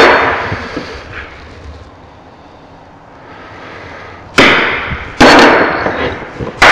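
A hammer striking a centre punch on a small steel part held in a bench vice: three sharp, ringing metal blows in the last two and a half seconds, marking the centre for drilling. There is a loud metallic clank at the very start.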